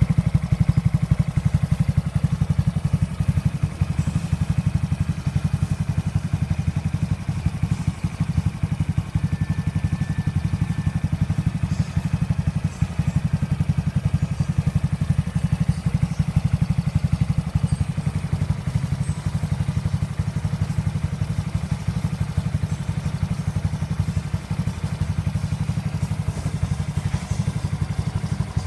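Honda Super Cub C125's 125 cc air-cooled single-cylinder four-stroke engine running steadily at idle through a Kitaco aftermarket exhaust, a low, even pulsing exhaust note.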